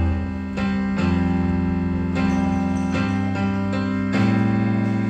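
Electronic keyboard playing sustained chords, a new chord struck about every second.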